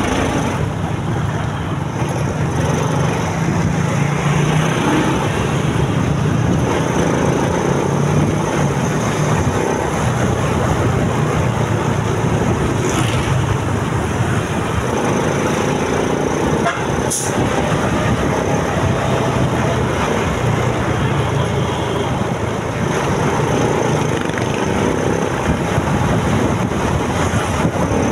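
Motorcycle engine running steadily while riding, with road and traffic noise. A brief sharp click comes about seventeen seconds in.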